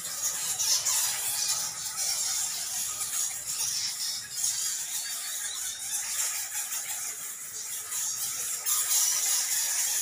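A roosting bat colony squeaking and chittering together: a dense, steady high-pitched chatter of many overlapping calls.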